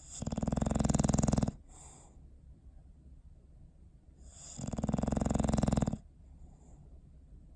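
English bulldog snoring in his sleep: two long rattling snores, each about a second and a half and some four seconds apart, with softer breathing between.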